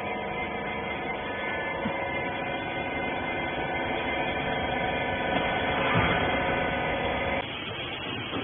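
Hydraulic pump motor of a wiping-rag baler running with a steady hum, growing louder about six seconds in, then cutting off suddenly near the end.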